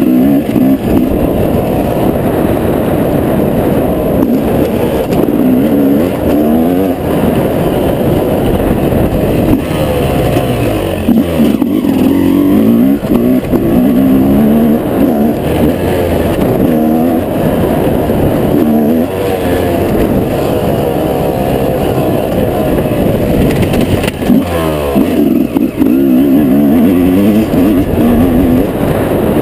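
Yamaha YZ250 single-cylinder two-stroke motocross engine, heard on board while ridden hard: the revs climb and fall again and again as the rider accelerates through the gears and rolls off, with deeper drops and fresh climbs about twelve seconds in and again about twenty-four seconds in.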